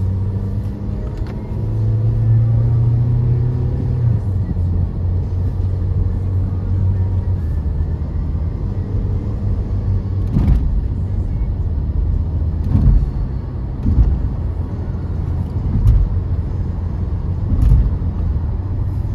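Inside a moving car: steady engine and tyre drone, with a brief rise in the engine note about two seconds in. In the second half a series of low thumps comes every second or two, typical of tyres crossing the joints of an elevated expressway.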